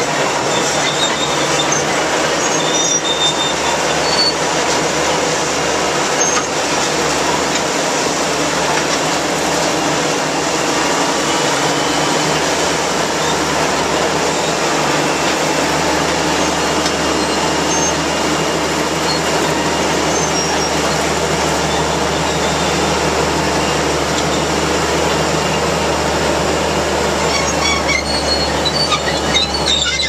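Steady, dense industrial din: crawler bulldozers' diesel engines running and steam hissing off hot slag, while a string of slag ladle wagons rolls slowly along the track with brief high wheel squeals.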